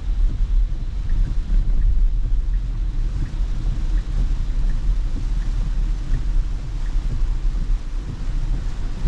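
Steady low rumble inside a car's cabin while driving in heavy rain: tyres on the wet road and rain on the car, with a few faint ticks.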